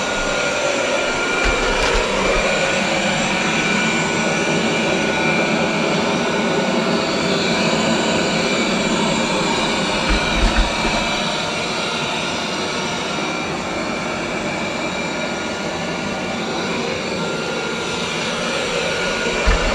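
Roborock S8 robot vacuum running steadily while cleaning, its suction fan giving a constant whir with a high whine over it. A few dull low thumps come about a second and a half in, around ten seconds in and near the end.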